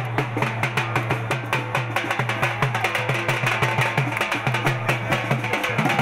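Dhol drum beaten with sticks in a fast, steady rhythm of several strokes a second.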